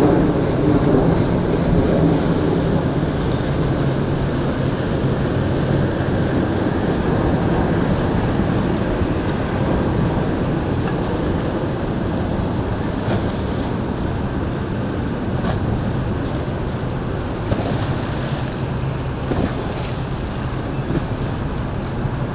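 A passing cabin cruiser's engines run with a steady low drone, mixed with water washing along the hull and wind buffeting the microphone.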